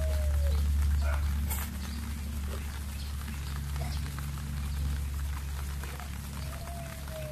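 An animal's short cry, dipping in pitch, heard twice, at the start and near the end, over a steady low rumble with faint scattered ticks.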